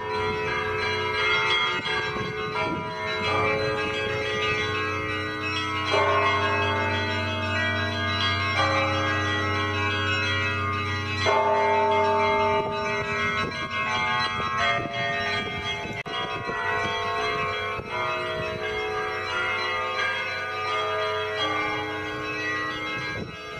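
Russian Orthodox monastery bells ringing: several bells of different sizes struck in a continuous peal, smaller bells chiming over a deep low bell whose hum weakens about halfway through.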